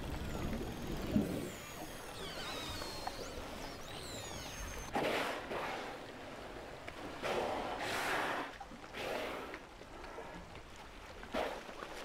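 Killer whales: thin, gliding underwater whistles and calls for about the first five seconds, then at the surface a series of four breathy blows about a second long each as the whales exhale in an ice lead.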